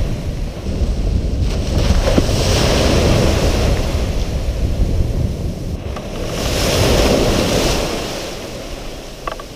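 Small surf breaking and washing through shallow water, swelling twice and easing near the end, with wind rumbling on the microphone.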